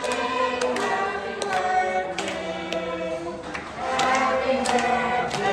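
A group of voices singing a birthday song together in long held notes, with sharp taps along with the singing.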